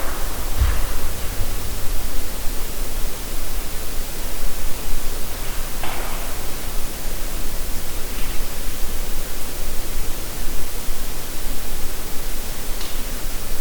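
Steady, loud hiss across the whole range, with a few faint brief sounds in it: a low thump under a second in, a short sound about six seconds in, and fainter ones around eight seconds and near the end.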